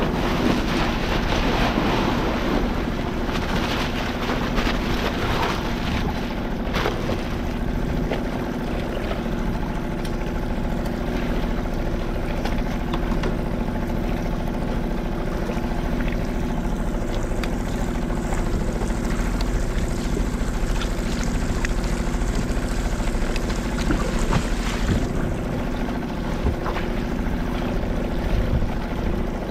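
Steady drone of a motorboat engine running, with low wind rumble on the microphone.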